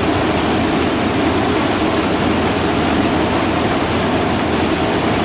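Satake rice huller running, a loud, steady rushing and rattling of the machine with grain passing through. This is the huller whose owner complains of a 'gatan-gatan' clunking noise.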